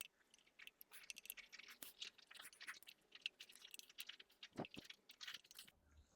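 Faint, rapid, irregular clicks and scrapes of hand tools working at the e-bike motor's bolts, sped up as a time lapse.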